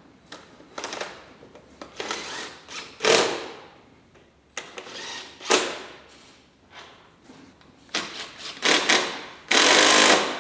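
Hands working plastic light parts and fasteners: irregular clicks, knocks and scrapes, then a loud rushing noise for about a second near the end.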